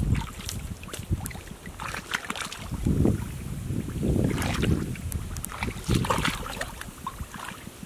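Shallow muddy water sloshing and splashing in irregular surges as hands grope through the mud and legs wade, with small sharp splashes and drips.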